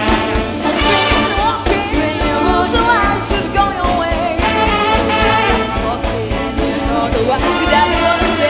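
Big band playing live: trombones and trumpets over a drum kit and a steady bass beat, with a woman singing over the band.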